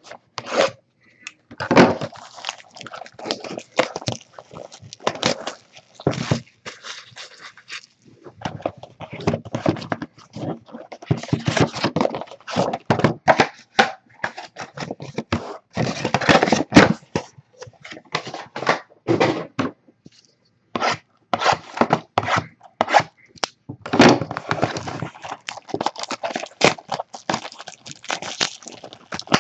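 A box of trading cards being opened by hand: packaging being torn and the cardboard box handled, giving irregular crinkling, tearing and scraping with knocks as it is set down and gripped.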